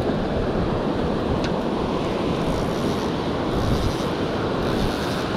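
Steady rush of sea surf with wind buffeting the microphone.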